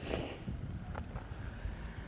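Wind rumbling on the microphone while a mountain bike is ridden over a trail, with a short rush of wind near the start and a couple of sharp knocks about a second in.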